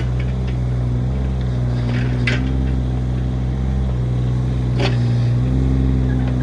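Diesel engine of a compact construction machine running steadily under load, its pitch shifting slightly, with two short sharp clicks about two and a half seconds apart.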